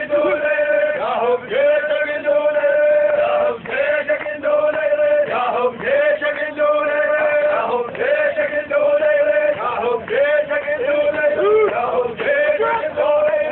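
Men's voices chanting a hosa, the Iraqi tribal chant: each line is held on one steady high note for a second or two, then broken off and repeated, over and over.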